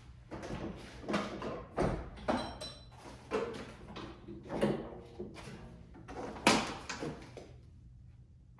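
A series of clicks, knocks and rattles as the hood latches of a Jeep Wrangler JK are unhooked and the hood is handled, the sharpest knock about six and a half seconds in.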